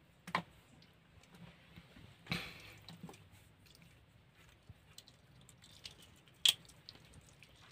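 Hands handling wet raw fish in a plastic basket: scattered soft clicks and rustles, the sharpest click near the end.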